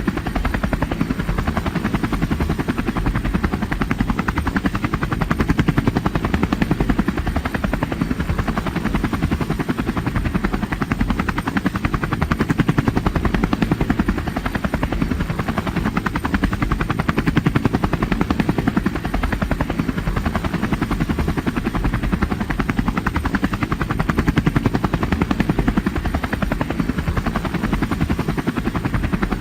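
Helicopter in flight, its rotor blades beating in a rapid, steady chop, with small swells in loudness every few seconds.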